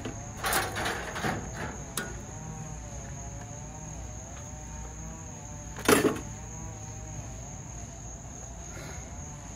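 Steady high-pitched chirring of crickets, with a faint wavering drawn-out tone underneath and a single sharp knock about six seconds in.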